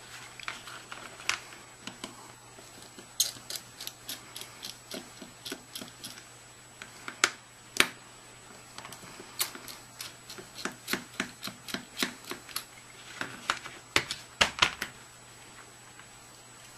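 Irregular small clicks and ticks, some in quick runs, from hands working a metal key-ring clip off a small plastic action camera and handling its case.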